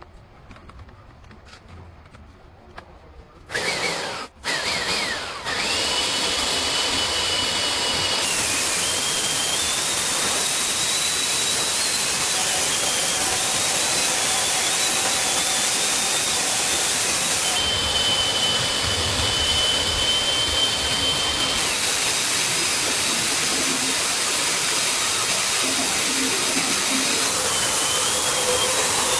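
A power tool starts with two short bursts about four seconds in, then runs steadily with a loud hiss and a high whine that wavers in pitch.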